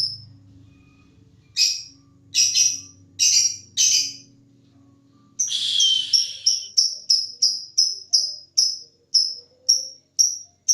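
Lovebird singing: four harsh, high chirps, then about halfway through a long, fast run of evenly repeated shrill notes, about three a second — the drawn-out chattering 'ngekek' song that lovebird fanciers prize.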